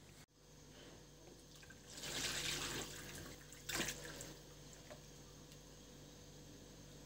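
Liquid poured from a small metal saucepan into a plastic bowl, in two spells: a longer splashing pour about two seconds in and a brief one about a second later.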